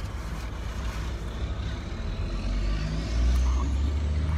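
Motor vehicle engine running with a steady low hum, getting louder about three seconds in as a faint high whine rises in pitch, like a vehicle pulling away.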